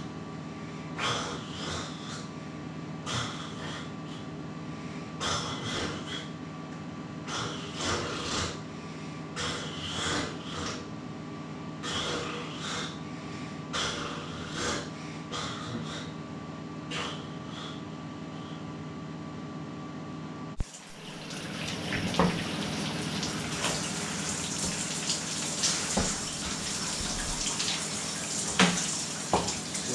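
Water dripping at irregular intervals over a steady low hum in a small tiled room. About two-thirds of the way through it cuts to a steady hiss of running water splashing onto a tiled shower floor.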